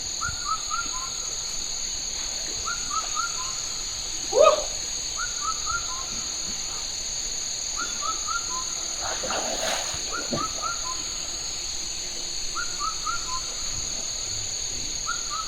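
Steady, high-pitched insect drone with a bird repeating a short phrase of a few quick notes about every two and a half seconds. A louder call falls in pitch about four seconds in.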